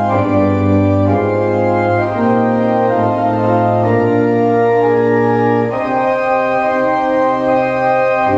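Organ playing a hymn tune in full sustained chords over a held bass, the harmony moving every second or two.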